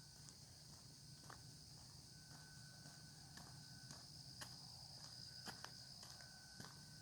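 Faint insect chorus of crickets trilling steadily at a high pitch, with a lower steady tone that comes and goes in stretches of about a second, and a few light, irregular footsteps.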